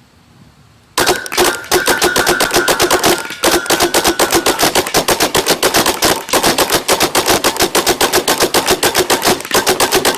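Rapid semi-automatic fire from a CO2-powered double Tippmann 98 paintball gun, two markers shot together in a fast stream of sharp pops. It starts about a second in and keeps going, with two short breaks, until the end.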